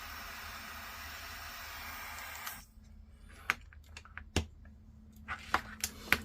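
Heat gun blowing a steady hiss on heat shrink over soldered QS8 connector joints, switched off about two and a half seconds in. Then a few light clicks and taps as parts and tools are handled.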